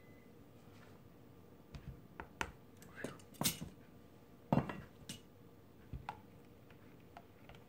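Scattered light clicks and knocks of a small scoop and a silicone spatula against a plastic mixing bowl as colorant powder is tapped in and stirring begins. The two loudest knocks come about three and a half and four and a half seconds in.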